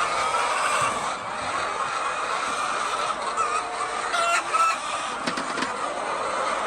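A large flock of laying hens clucking continuously, many birds calling over one another, with a few sharp clicks about four seconds in.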